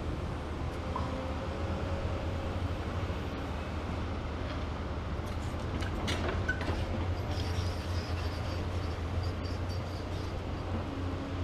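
Diesel engines of a Komatsu PC490 long-front demolition excavator and a second excavator running steadily under load as their booms swing, with a low rumble throughout. A few sharp metal clanks come about six seconds in.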